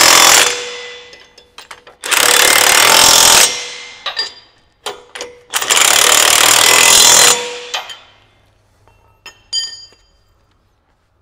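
DeWalt cordless impact wrench with a 15/16 socket hammering nuts tight on a drive sprocket: the tail of one burst, then two bursts of about a second and a half each. Short metallic clinks of tools against the nuts come between the bursts and near the end.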